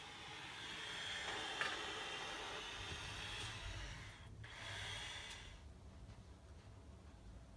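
Faint breathing close to the microphone: a long breath for about four seconds, then a shorter one, with a small click about a second and a half in.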